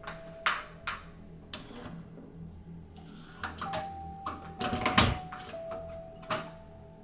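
A door and its latch being handled: a string of sharp clicks and knocks, with a heavier thump about five seconds in. Faint background music with held notes plays underneath.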